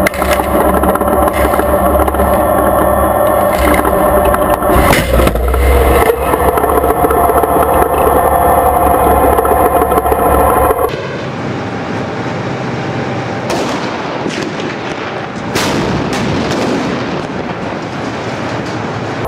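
Tank engine running with a steady low drone, and a sharp bang about five seconds in. About eleven seconds in the sound changes abruptly: the drone drops away, leaving a noisy combat ambience with several sharp bangs of gunfire.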